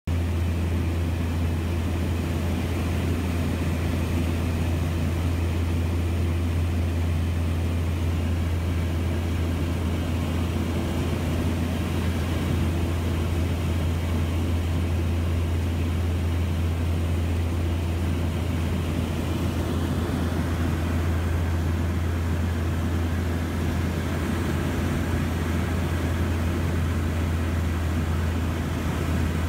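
Steady drone of a DHC-6 Twin Otter's turboprop engines and propellers, heard from inside the cabin in level flight: an unbroken deep hum with a rushing hiss above it.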